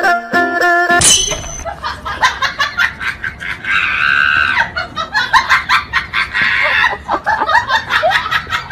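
People laughing loudly in short rapid bursts, with one long high-pitched cry about four seconds in; plucked background music plays for the first second and then cuts off.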